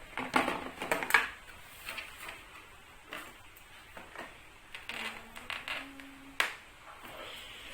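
Plastic doll packaging crackling and crinkling in two bouts of handling, with a single sharp snap about six and a half seconds in.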